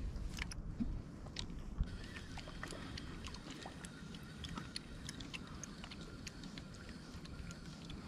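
Spinning reel being cranked to retrieve a lure: a quiet run of light, irregular clicks over a low wind rumble on the microphone.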